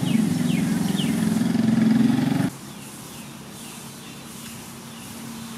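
A motor running with a loud, steady low hum, a few short high chirps over it, cut off abruptly about two and a half seconds in; after that only a quiet background with a faint steady tone.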